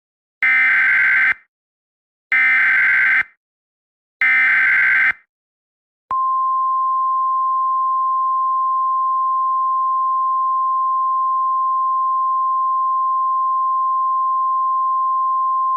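Emergency Alert System header: three identical bursts of buzzy digital data tones. A short gap follows, then a single steady high attention tone holds for about ten seconds and cuts off.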